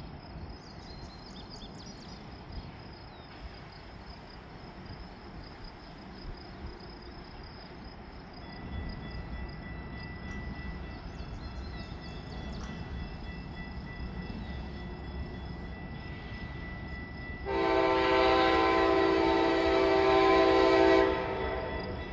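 Approaching train: a low rumble builds, then the locomotive's air horn sounds one long blast of about three and a half seconds near the end, the loudest sound. A steady insect buzz runs underneath.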